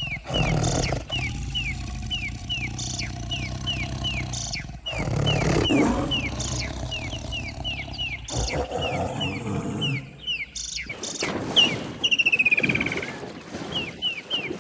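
A big cat growling and roaring in several short, separately edited bursts, over a steady series of high, falling chirps, about two or three a second.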